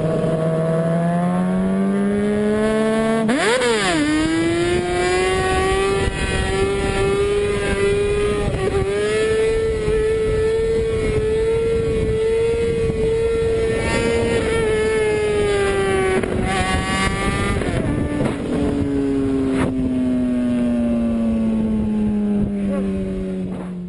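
Sport bike engine heard from on board while riding. The engine note climbs at first, gives a quick sharp rev about three and a half seconds in, then holds a high, nearly steady pitch at speed through the middle. Near the end it eases off, and the pitch falls steadily as the bike slows, under constant rushing wind.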